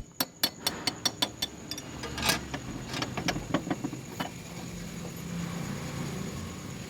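Metal clinks and knocks of steel gearbox parts being handled as the top pinion is worked out of a tractor gearbox, a quick run of strikes over the first four seconds. After that a steady low hum carries on.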